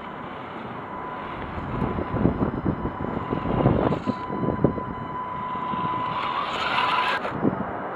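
Tamiya Wild Dagger RC truck's electric motor and gearbox whining as it drives over rough gravel and dirt, with crunching and knocking from the tyres and chassis in the middle. The whine rises in pitch near the end and cuts off suddenly.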